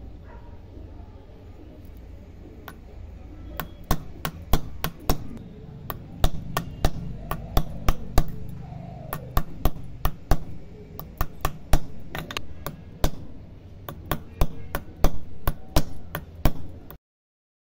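Irregular sharp metallic taps, a few a second, as brass chain links are struck on a steel bench block to form the round jump rings into ovals. A steady low hum runs underneath, and the taps begin a few seconds in and stop suddenly near the end.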